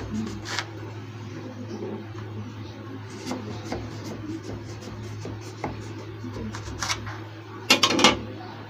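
A knife scraping and tapping as it cuts through crumbly mysore pak in a metal tray, with soft knocks of the blade against the tray. Near the end comes a short clatter of sharp knocks, the loudest sound, and a steady low hum runs underneath.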